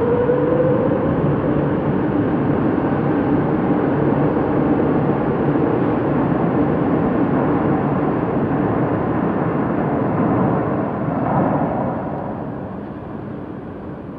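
Madrid Metro Serie 8400 electric train departing the platform: wheels rumbling on the rails and traction motors whining with slowly shifting pitch as it speeds away, fading out over the last couple of seconds as it enters the tunnel.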